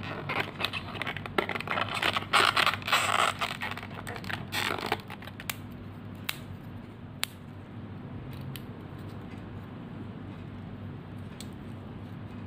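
Card 3D puzzle pieces being pushed and slotted together by hand: scraping and rustling of card for about five seconds, a few sharp clicks after that, then quieter handling.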